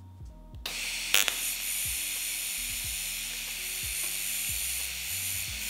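TIG welding arc on 2 mm sheet at 70 amps DC, struck about half a second in with a brief crackle and then held as a steady high sizzling hiss while a large tack is laid with 1.6 mm filler rod.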